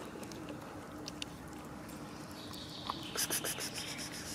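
Cats eating chunks of wet food from plastic tubs: soft chewing and lapping clicks. About three seconds in, a rapid high-pitched pulsing sound starts and lasts about a second, louder than the eating.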